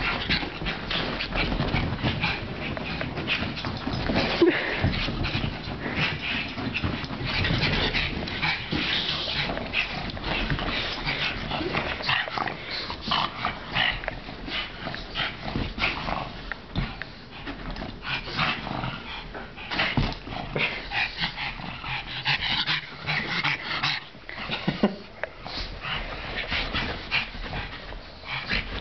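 Two pugs play-fighting and chasing each other, making a continuous run of short, choppy dog noises, busier and louder in the first half.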